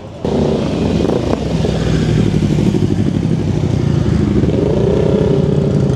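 Motorcycle engine running close by, cutting in suddenly and holding a steady low beat, its pitch rising slightly about four seconds in.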